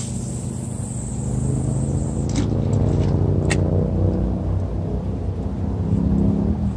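An engine running with a steady low hum, its pitch dipping slightly near the end, with a few sharp clicks on top.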